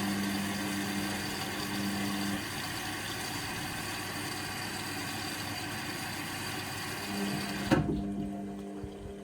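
Indesit washing machine filling with water on its Cotton 40 cycle: a steady rushing hiss of water through the inlet. A motor hum drops out early and comes back before the fill cuts off suddenly with a click near the end.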